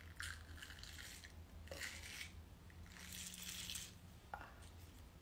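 Faint sticky peeling of a liquid-latex prosthetic nose piece being picked and pulled off the skin by fingertips, in a few soft scraping pulls with a couple of small clicks.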